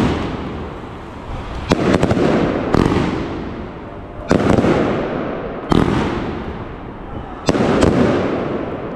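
Consumer firework battery (cake) firing shot after shot. There are five sharp bangs a second or two apart, each followed by a rush of noise that fades over about a second.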